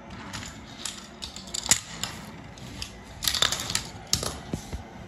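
Small plastic toys handled and set down on a wooden toy train track: a scattered run of clicks, taps and rattles, busiest in the second half.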